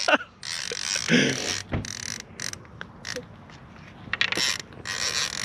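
Fishing reel clicking and whirring in spurts as a hooked carp is fought.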